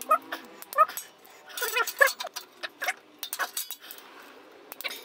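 Light metallic clicks and clinks of a hand tool running in the clutch cover bolts on a Kawasaki Vulcan 1500, with short squeaks mixed in.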